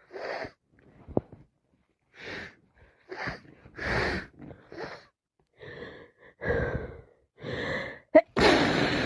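A person with a head cold and sinusitis sneezing over and over, with short gasping breaths between the sneezes. The sharpest, loudest sneeze comes near the end.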